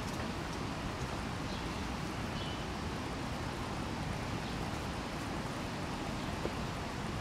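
Steady outdoor background noise: an even hiss with a low rumble and a few faint ticks, and no call from the bird.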